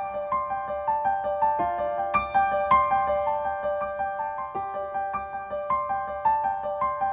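Solo piano background music: a gentle, repeating pattern of sustained notes, several a second.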